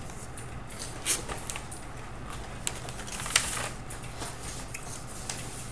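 Scattered rustles and light clicks of a paper sheet and small objects being handled on a desk, with a steady low hum underneath; the loudest rustle comes a little past three seconds in.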